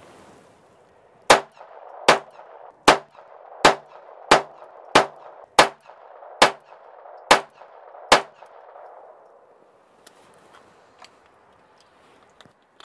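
Ruger SR22 .22 LR semi-automatic pistol firing standard-velocity ammunition. It fires ten shots in a steady string, about one every three-quarters of a second, cycling reliably, and the shooting stops about eight seconds in.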